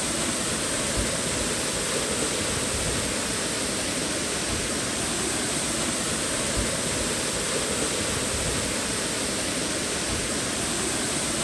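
A waterfall's steady rushing of falling water, unbroken throughout.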